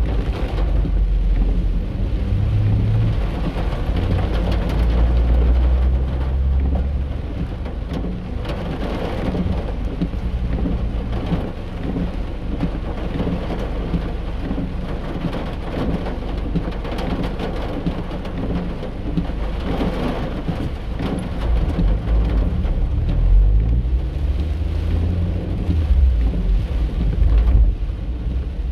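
Rain falling on a car's roof and windshield, heard from inside the moving car over a low rumble of engine and tyres on the wet road. About twenty seconds in, the engine's pitch rises as the car speeds up.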